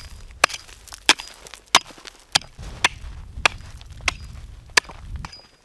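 Hatchet chopping a hole through snow-covered pond ice: eight sharp, evenly spaced strikes, about one every two-thirds of a second.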